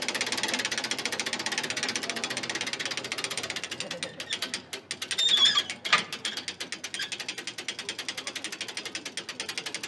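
A car rollover simulator's rotating mechanism clicking fast and evenly, about ten clicks a second, as it turns an upturned car. A brief, louder squeak comes about five seconds in.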